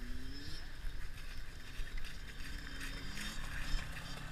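A 125cc two-stroke dirt bike engine running at low revs, rising briefly at the start and again about three seconds in, under steady wind noise on the microphone. There is a sharp knock about three and a half seconds in.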